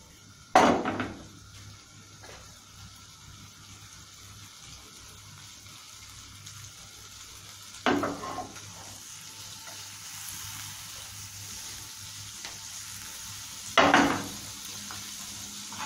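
Butter sizzling and bubbling as it melts in a non-stick frying pan over a gas flame, the sizzle growing a little louder as it heats. Three sharp knocks of the pan or utensils come about half a second in, near the middle and near the end.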